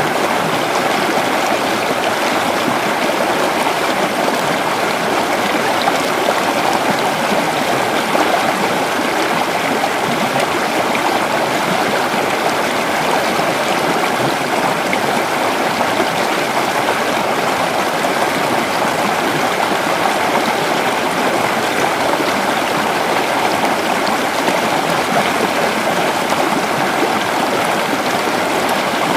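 Creek water flowing steadily over rocks, a constant rushing and gurgling.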